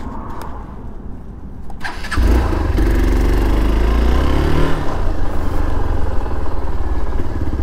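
Motorcycle engine starting after refuelling: a click about two seconds in, then the engine catches. Its pitch wavers for a couple of seconds before it settles into running steadily.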